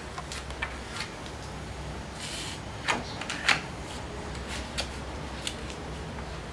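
Scattered light clicks and knocks of handling, the two sharpest about three seconds in, over a steady low hum.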